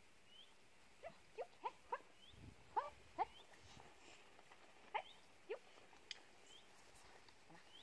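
Young dog giving about nine short, high yips that each fall in pitch, spaced irregularly, with faint bird chirps in the background.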